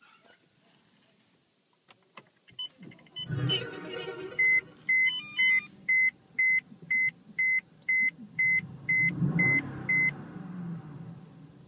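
Mercedes CLS63 AMG's twin-turbo V8 cranking and firing about three seconds in with a start-up flare, then blipped up in revs near the end before settling to idle. Over it, a dashboard warning chime beeps about twice a second, a dozen times.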